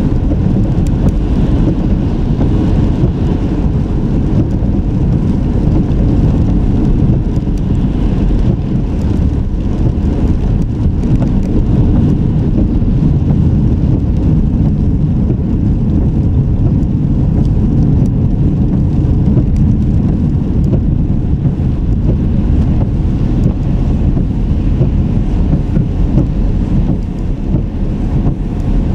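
Steady low rumble of a car being driven: engine and road noise recorded from inside the car.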